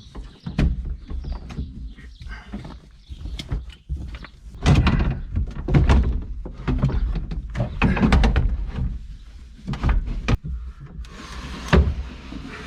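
A run of irregular thuds, knocks and clatter from parts being handled and shifted around inside an old pickup's cab, with the loudest bumps about halfway through and a brief rustling scrape near the end.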